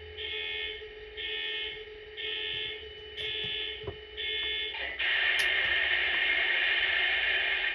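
Sound system of an MTH HO-scale SD70ACE model locomotive. It plays five evenly spaced electronic tone pulses, about one a second, over a steady hum. About 5 s in, a louder, steady sound takes over.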